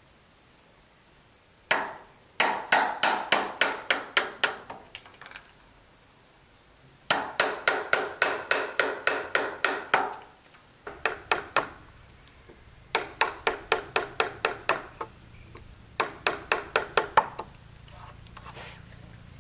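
A wooden mallet striking a chisel as it cuts a joint into a wooden beam. The knocks come quickly, several a second, in about five runs with short pauses between.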